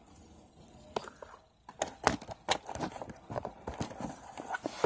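Household objects being handled and set down, heard as a run of irregular knocks and clicks starting about two seconds in, with a loud knock at the end.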